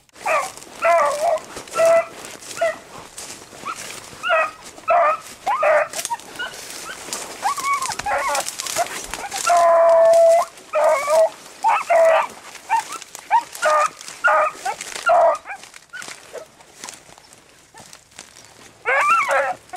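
Beagles baying on a rabbit's scent: a run of short, repeated bays with one long drawn-out bay about ten seconds in, quieter for a few seconds before the baying picks up again near the end.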